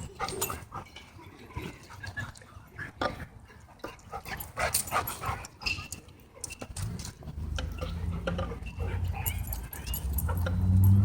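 Dogs playing rough at close quarters, with short yips, whimpers and scuffling. A low steady drone comes in about two-thirds of the way through and grows louder toward the end.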